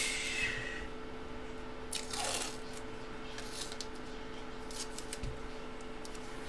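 Quiet handling noise of paper and packaging on a table: a brief rustle about two seconds in and a few faint clicks, over a steady low hum.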